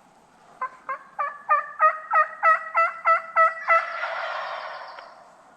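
A run of about a dozen turkey yelps, evenly spaced at about three a second and growing louder, ending in a rougher rattling call of about a second.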